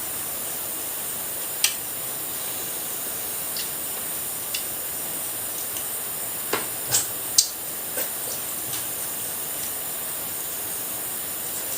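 A person eating crab: scattered short clicks and smacks of shell and mouth over a steady high hiss, the sharpest about seven seconds in.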